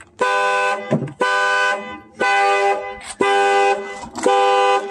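A 2014 Chevrolet truck's horn honking in a steady alarm pattern, five blasts about one a second: the anti-theft alarm set off as the battery is reconnected.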